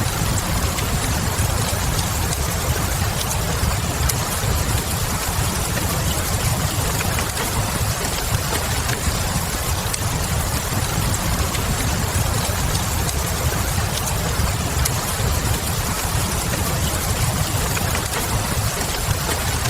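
Steady rain and wood-fire ambience: an even rain hiss over a low rumble, with scattered faint crackles of burning logs.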